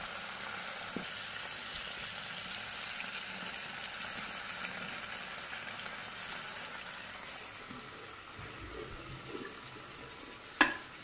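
Fish-belly curry simmering in a wok, a steady sizzling hiss of the bubbling gravy, with a single sharp clack near the end.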